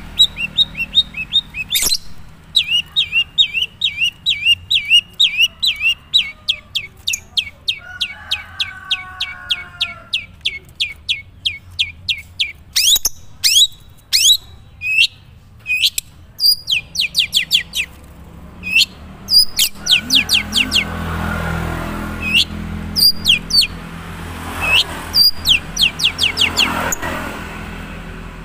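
Long-tailed shrike (cendet, Madura type) singing in fast runs of short, sharp chirps, several a second, broken by brief pauses. It is the bird's own natural song, not yet filled with much learned mimicry.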